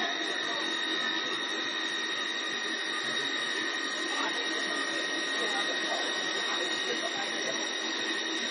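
CNC wood lathe turning a wooden spindle, its motor-driven circular cutter shaving the spinning workpiece: a steady high whine over a continuous rushing cutting noise.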